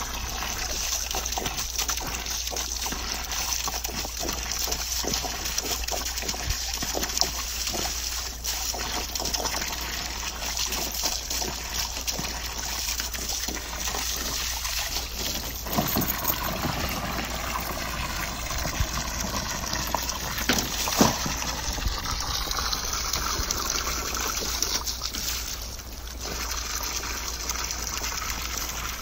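Garden hose stream pouring into a shallow plastic kiddie pool with steady trickling, and repeated splashing as a Doberman paws and snaps at the water. One splash about two-thirds of the way through is louder than the rest.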